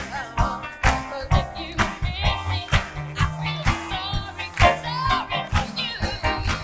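Live gospel ensemble: a woman sings the lead line over a band with a steady drum beat, about two beats a second, and a bass line.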